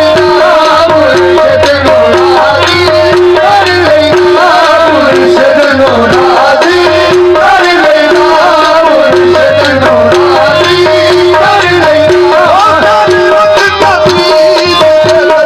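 Qawwali music: a tabla beat with a harmonium melody moving over steadily repeated held notes.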